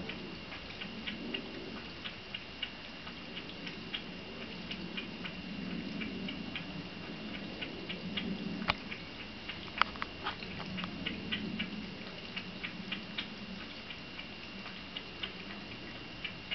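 Cat lapping from a wine glass: irregular soft wet ticks, a few a second, with two louder clicks near the middle.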